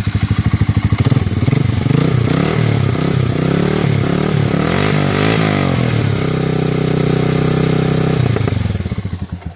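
Engine running just after a start, revved up and down several times in the middle, then held steady before being switched off, dying away at the very end.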